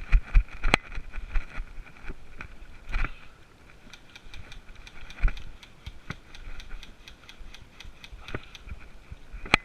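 Scattered sharp clicks of airsoft guns firing, a run of them coming several a second from about four seconds in, with a few dull thumps and a faint steady whine behind.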